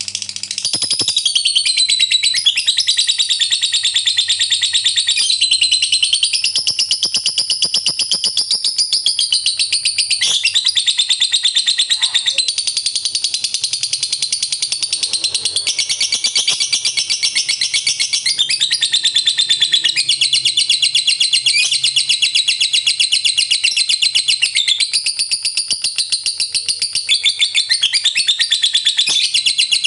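Lovebird singing its ngekek: one long, unbroken, high-pitched chattering trill of very rapid repeated notes that never pauses. This is the 'ngekek panjang' long-duration trill that keepers prize in fighter lovebirds.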